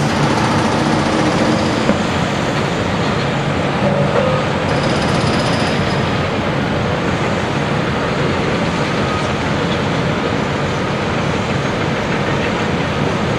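Cat 385BL hydraulic excavator working: its big diesel engine runs steadily at high power, with a faint thin high whine about five seconds in.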